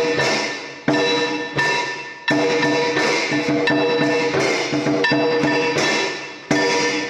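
Music with sharp percussive strikes at uneven intervals over held ringing tones.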